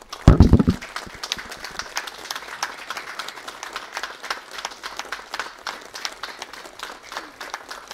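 Crowd and players applauding steadily, a minute's applause with both teams lined up at the centre circle. A short loud low thump comes just after the start.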